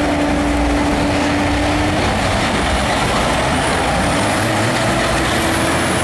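Two heavy diesel trucks, a semi tractor and a dump truck, pulling hard from a drag-race start at full throttle. Their engines are loud and steady, and they run black smoke as they accelerate.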